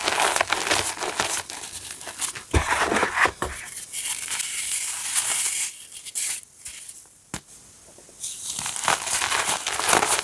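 Blocks of reformed gym chalk being crushed and crumbled, a crisp run of crunching and crackling in bursts, with a brief quieter lull about two-thirds of the way through.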